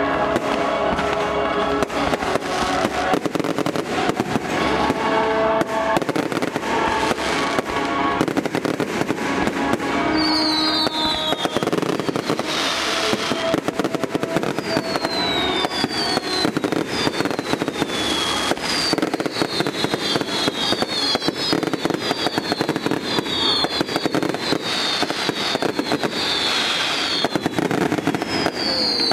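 Fireworks display: dense rapid crackling and popping of bursting shells, with music underneath for the first several seconds. From about ten seconds in, many short falling whistles from whistling fireworks ride over the crackle.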